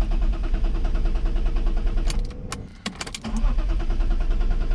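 1995 BMW E36 M3's straight-six cranked on the starter in two attempts, a short gap with clicks between them, turning over rhythmically but never firing. This is a crank-no-start, which the owner traced to a failed crankshaft position sensor.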